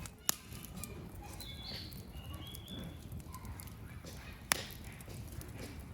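Wood campfire burning with a low, steady crackle and two sharp pops, one just after the start and one about four and a half seconds in.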